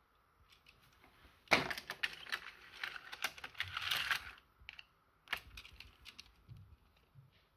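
Hard plastic clicking and clattering of a Tut Tut Baby Flitzer toy car against the plastic track of its parking garage toy: a dense run of clicks for about three seconds, then a sharp knock and a few scattered clicks.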